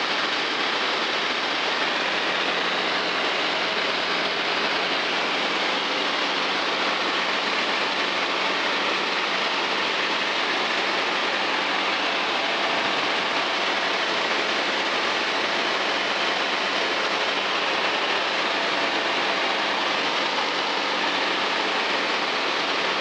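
Steady in-flight drone of a light kitplane's engine and propeller at cruise, mixed with wind noise, heard from inside the cockpit. It holds even throughout with a faint low hum under the rush of noise.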